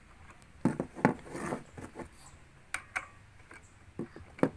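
Parts of an angle grinder stand being handled and fitted together: a run of sharp knocks and clicks, with a brief scraping rub between the first few.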